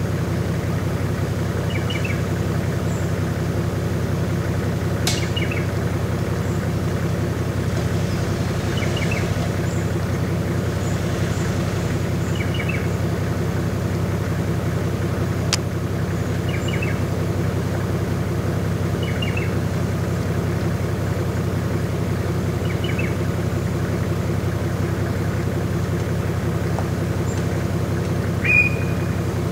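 Suzuki Jimny engine running steadily at constant low revs as it crawls up a rocky rut, with a bird chirping every few seconds. A short, louder high squeak comes near the end.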